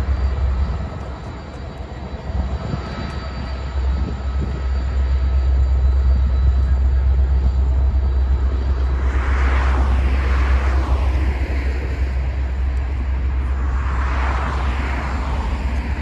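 Norfolk Southern diesel locomotive running with a steady low rumble. Two whooshing swells come about nine and fourteen seconds in.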